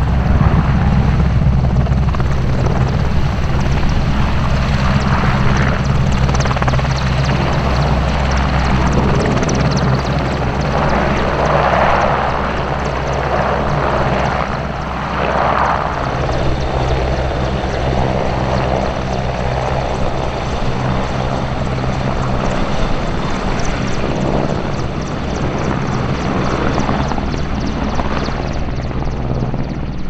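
AW101 Merlin helicopter running up close: rotor beat and turbine engines together in a loud, steady noise, with swells of blade noise around the middle as it lifts off and hovers.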